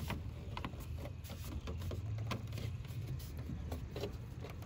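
Faint, scattered taps and clicks of hands pressing plastic rear window louvers down against a car's back glass, over a steady low rumble.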